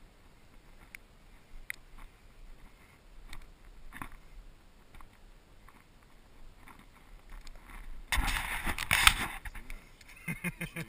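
Handheld camera being moved and handled: scattered faint clicks and knocks, then a loud rubbing, scraping noise on the microphone for about a second, about eight seconds in. Near the end comes a quick run of short nasal calls.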